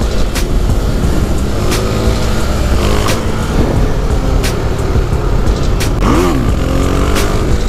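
Motorcycle engine under way, its pitch climbing under throttle and then blipping up and down again near the end, over heavy wind noise on the microphone. A sharp tick comes about every one and a half seconds.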